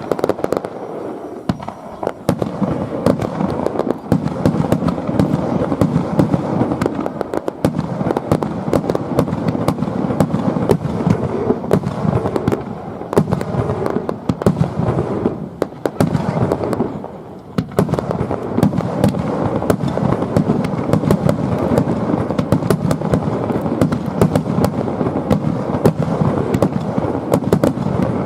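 Aerial fireworks display in a dense, continuous barrage: many sharp bangs and crackles overlapping without a break. There is a short lull about two-thirds of the way through, before the barrage picks up again.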